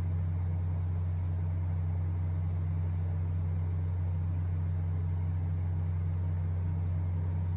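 A steady low mechanical hum, unchanging throughout, with a faint hiss over it.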